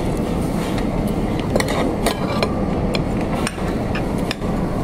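Metal spoon and cutlery clinking against plates several times, short sharp clicks scattered through, over the steady low background noise of a restaurant dining room.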